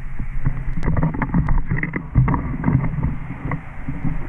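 Heavy wind rumble on the microphone, with irregular rustling and sharp cracks of brush and grass being pushed through.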